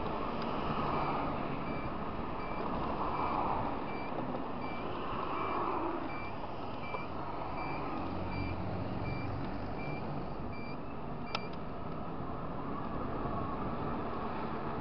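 Motor scooter running under way, with steady engine, wind and road noise. A short, high electronic beep repeats about every 0.7 s until about eleven seconds in, and a single sharp click follows.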